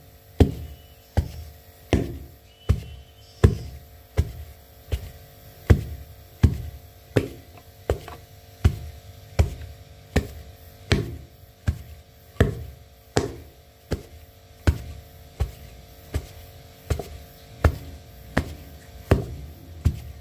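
Wooden pestle pounding a rice-flour, grated-coconut and palm-sugar dough in a mortar: steady rhythmic thuds, about four strikes every three seconds. A steady low hum runs beneath.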